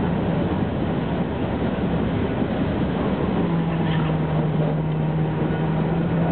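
Tram running on its rails, heard from inside the car: a steady rolling rumble, joined about three seconds in by a steady low hum.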